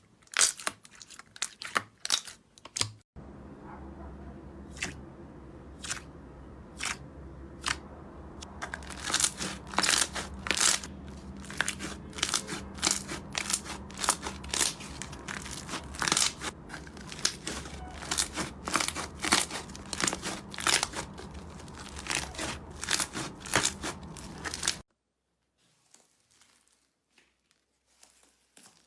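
Slime being pressed and kneaded by hand, giving many sharp clicks and pops. After a break about 3 seconds in, the clicks come thick and fast over a steady low hum, then cut off suddenly about 25 seconds in, leaving only faint handling sounds.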